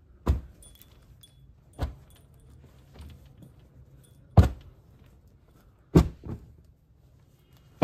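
Folded bundles of cotton dress fabric being lifted off a stack and set or tossed down, with five dull thumps, the loudest about four and six seconds in, and faint cloth rustling between them.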